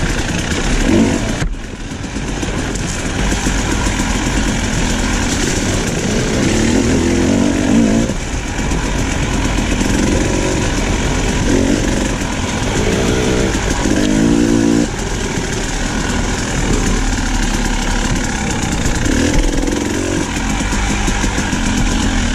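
Two-stroke enduro dirt bike engine running under load on a trail ride, its note rising and falling as the throttle is worked on and off. The sound changes abruptly about a second and a half in and again near fifteen seconds.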